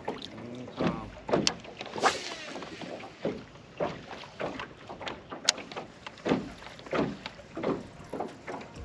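Water lapping and slapping against a boat hull in small irregular slaps, with the odd knock.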